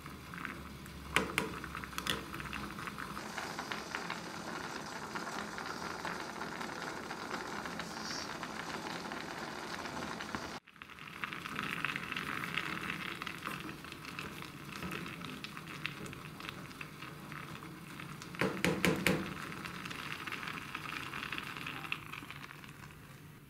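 Water with fusilli in it bubbling at the boil in a stainless steel pot, stirred with a wooden spoon that knocks against the pot a few times, most loudly about nineteen seconds in. The sound breaks off for an instant about ten seconds in and fades near the end.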